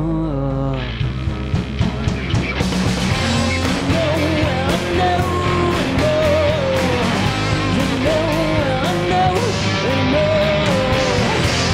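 Live rock band playing: two electric guitars, electric bass, keyboard and a drum kit, with a wavering melodic lead line over the top. The cymbals come in fuller about two and a half seconds in.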